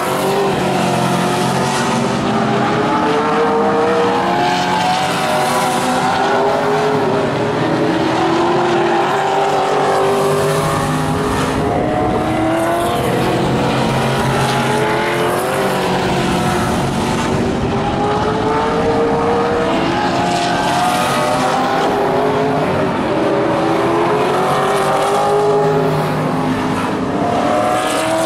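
Several vintage modified race cars racing on a paved oval, their engines rising and falling in pitch as they power down the straights and lift for the turns, with more than one engine heard at once.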